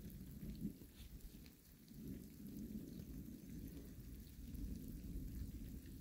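Thunder rumbling low and rolling, easing off briefly and then building again toward the end.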